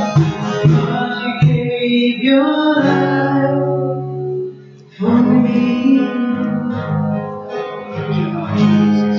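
A woman singing a slow worship song to strummed acoustic guitar. The music drops away briefly about halfway through, then comes back in.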